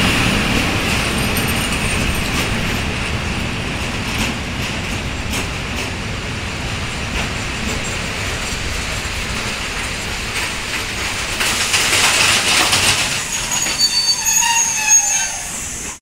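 Freight train of open wagons behind an ET22 electric locomotive rolling past: a steady rumble of wagon wheels on the rails that grows louder about twelve seconds in, with clattering knocks and several high wheel squeals near the end.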